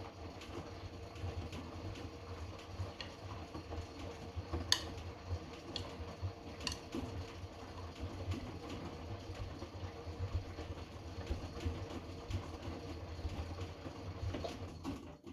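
Hotpoint washing machine running a Cotton 90°C wash in its heating stage: a steady low motor hum with a faint steady tone, a few sharp clicks about a third of the way in, and a sudden stop at the very end.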